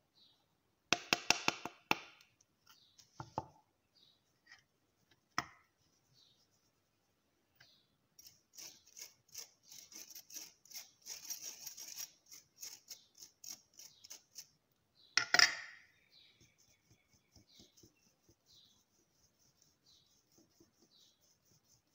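Ground cardamom being sifted through a stainless-steel mesh strainer. A cluster of sharp taps and rattles comes about a second in, then a few single knocks, several seconds of quick ticking and scraping against the mesh, and one loud knock about fifteen seconds in.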